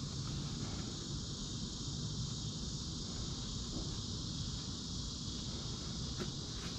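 Steady high-pitched insect chorus, with a low background rumble underneath.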